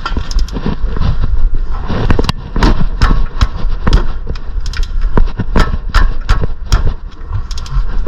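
Irregular sharp knocks and clanks, about two or three a second, from tools striking and working on the front brake parts, over a steady low rumble.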